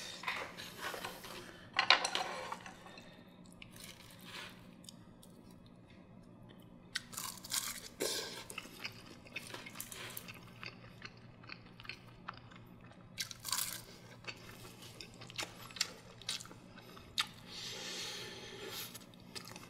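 Close-up eating sounds: chewing and mouthfuls of Korean steamed egg (gyeranjjim), with scattered sharp clicks of chopsticks and a spoon against the earthenware ttukbaegi bowl.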